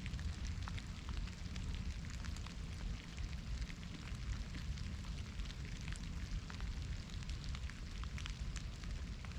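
Soft rain falling steadily in a forest, with many separate drops ticking over a continuous hiss and a steady low rumble underneath.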